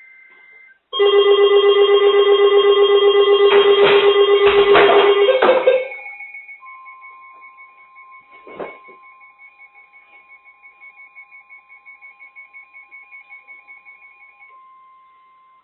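Emergency Alert System alert tones before a tornado warning. A brief burst of warbling data tones is followed, about a second in, by a loud, rapidly pulsing multi-tone alarm for about five seconds. The alarm then drops to fainter pulsing tones, with a steady single tone joining partway through.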